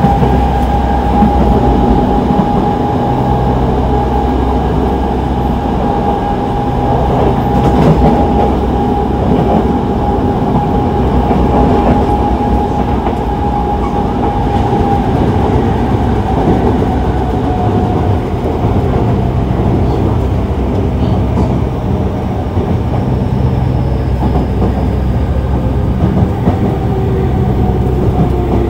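Yokohama subway 3000A train running, heard from on board: the whine of its Mitsubishi GTO-VVVF traction inverter and motors over steady wheel and track rumble. The whine holds steady, then slowly drifts lower in the second half.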